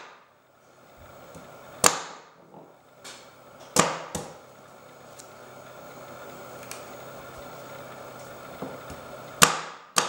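Aitor Oso Negro knife chopping a carrot on a wooden cutting board: sharp knocks of the blade striking the board, one every second or two, with a long pause in the middle and two close together near the end.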